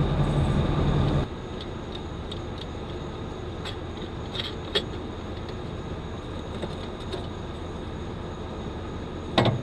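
An engine idling with a steady low hum that cuts off abruptly about a second in. After that there is a quieter steady background with a few light clicks and a knock near the end.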